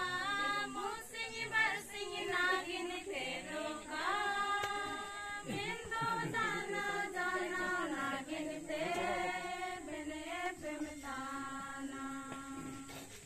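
A group of women and girls singing a Mundari welcome hymn (swagat bhajan) together in unison, without instruments. The singing stops just before the end.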